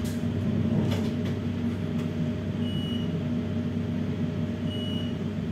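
Steady low hum inside a standing Bombardier 4200-series tram, from its onboard electrical and ventilation equipment, with two short high beeps about two seconds apart in the second half.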